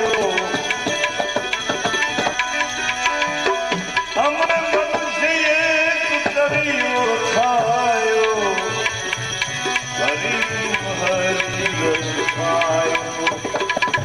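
Instrumental passage of a Gujarati devotional bhajan: tabla playing a steady stream of quick strokes under a melodic instrument carrying a winding tune that slides between notes.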